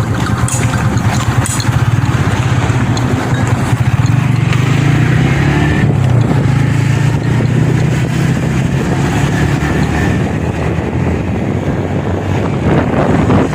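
A road vehicle's engine running steadily while travelling along a road, with road and wind noise over it.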